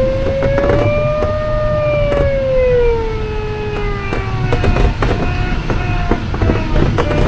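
Glider's electronic variometer tone over the rush of air around the cockpit. A continuous tone rises a little, then slides down, as the vario signals sink. About five seconds in it breaks into short, higher, repeated beeps, the vario signalling climb.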